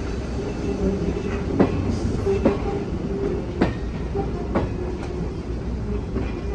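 Freight train rolling slowly: wheels click over rail joints about once a second over a steady rumble, with a faint steady tone underneath.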